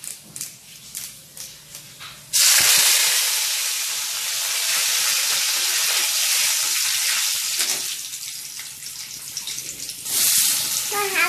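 Curry leaves hitting hot oil in a steel kadai: a sudden loud sizzle about two seconds in, after a faint crackle of the tempering seeds, easing off over several seconds and flaring up again near the end as the leaves are stirred.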